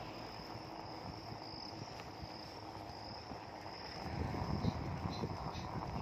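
Insects shrilling steadily in the roadside vegetation, one high thin pulsing note, over a low rumble of wind and rolling bicycle that gets louder about four seconds in.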